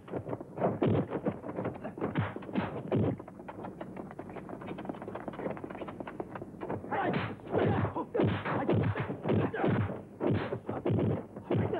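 Kung fu film fight sound effects: quick punch and kick impacts, thwacks and thuds several a second. They thin out for a few seconds in the middle, then come thick again.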